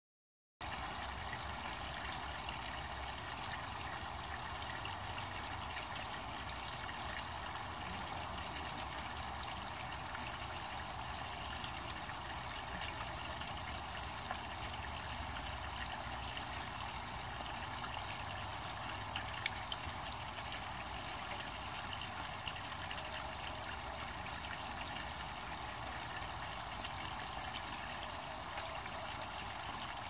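Small garden waterfall: water pouring steadily from a spout over stones into a shallow stream, an even splashing trickle, with a low rumble underneath.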